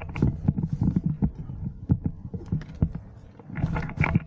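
Handling and movement noise on a body-worn camera: a low rumble with irregular knocks and rustles of gear, and a short breathy hiss near the end.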